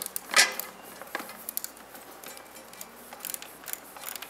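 Socket ratchet turning a 10 mm bolt out, its pawl clicking in quick short runs, with one sharper metallic click about half a second in.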